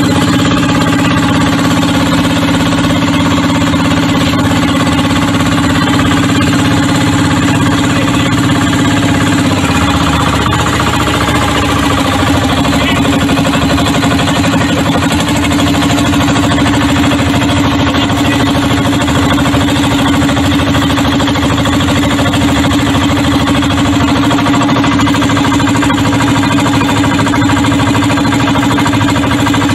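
Small inboard engine mounted in a wooden fishing boat's hull, running loudly and steadily during a test run. Its note shifts a little about ten seconds in.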